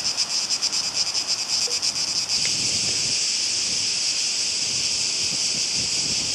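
Cicadas buzzing in a chorus, a rapid pulsing that merges into a steady high buzz about two seconds in.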